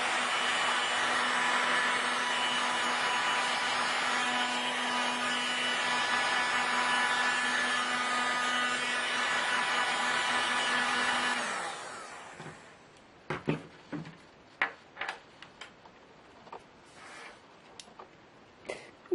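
Small electric fans of a laptop cooler pad running with a steady whir, then switched off about two-thirds of the way in and spinning down quickly, followed by a few sharp clicks and knocks of handling.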